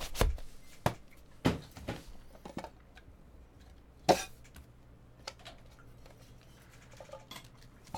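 Handling and opening a trading-card box's hard plastic case: a few short knocks and clicks, the loudest about four seconds in.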